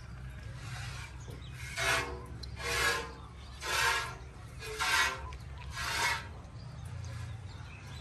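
Milk squirting by hand from a cow's teats into a steel bucket: five hissing squirts about one a second.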